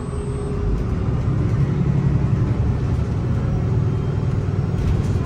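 Inside a 2022 Gillig hybrid bus under way: a steady low rumble from its Cummins B6.7 diesel and BAE hybrid drive, growing slightly louder about a second in, with a faint steady hum on top.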